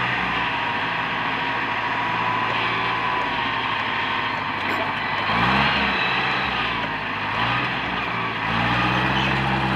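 Komatsu PC200 excavator's diesel engine running steadily with a high hydraulic whine over it. The engine note climbs twice, about halfway through and near the end.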